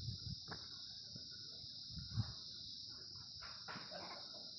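Pomeranian puppies play-fighting on a woven rug, with soft scuffling and rustling, a brief thump about two seconds in and a few short sounds near the end. A steady high-pitched drone runs underneath.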